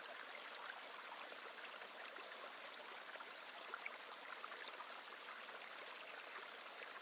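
Faint, steady rush of water with many small ticks and drips.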